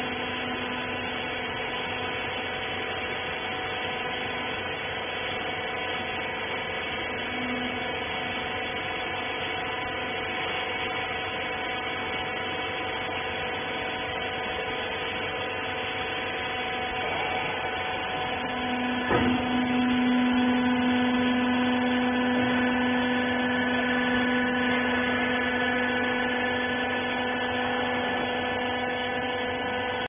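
Hydraulic rag baler's electric motor and pump running with a steady hum made of several fixed tones. A click comes about two-thirds of the way through, and after it the hum gets louder.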